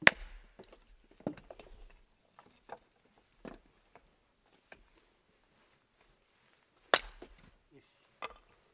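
Axe and hatchet blows splitting firewood on wooden chopping blocks: sharp, separate wood-chopping strikes every second or two, the loudest right at the start and about seven seconds in, with a quiet stretch before it.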